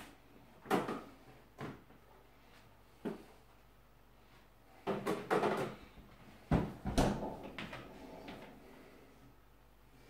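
Kitchen door and handling sounds: a string of separate knocks and clunks as a door is opened and closed and things are moved about. The loudest two knocks come about two-thirds of the way in.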